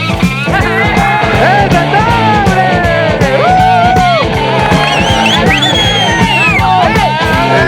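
Rock music with a steady drum beat and a lead line that slides and bends in pitch.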